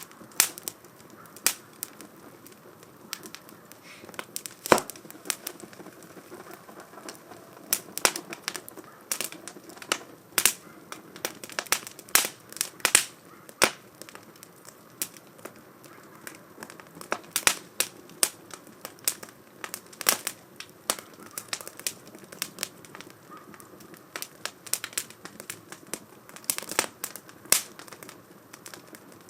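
Wood fire crackling in a 2×4 STOVE iron fire pit: irregular sharp pops and snaps, a few much louder than the rest, over a soft steady hiss of flame.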